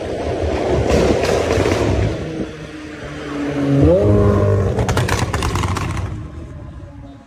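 McLaren 765LT's twin-turbo V8 running at speed, revving up with a quick rise in pitch about four seconds in, followed by a short run of sharp crackles. The sound then fades as the car pulls away.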